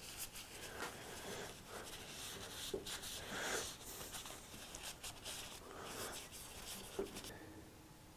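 Faint, irregular rubbing strokes of dust being wiped off the wooden workpiece, easing off near the end.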